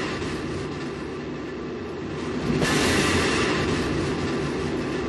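Steady rushing, rumbling noise that swells louder about two and a half seconds in.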